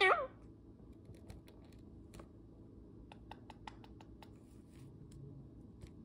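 Indian ringneck parakeet saying a short, high-pitched 'hello' at the very start. After that, scattered light clicks and taps, bunched about three to four seconds in.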